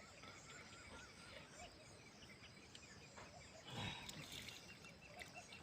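Near silence: faint outdoor background with small birds chirping, and a brief soft rustle about four seconds in.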